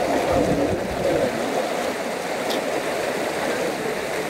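Canal water rushing and splashing as elephants wade and thrash through it, a steady churning of water.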